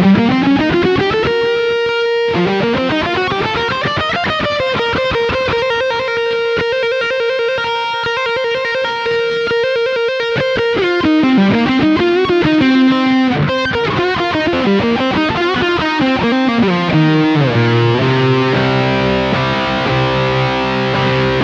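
Tokai ALS62 Gold Top, a Les Paul-style electric guitar, played as a tone demo. Single notes glide up and down in pitch, with one long held note in the middle, and from about 17 seconds in it settles into sustained chords.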